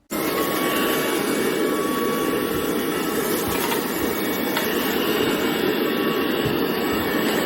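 Tineco Pure ONE S11 cordless stick vacuum running steadily with a loud, even motor and suction noise, cutting in suddenly at the start.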